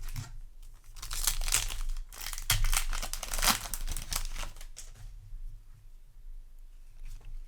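A Yu-Gi-Oh! booster pack's foil wrapper being torn open and crinkled, a run of dense rustling and tearing for a few seconds that dies down to softer handling.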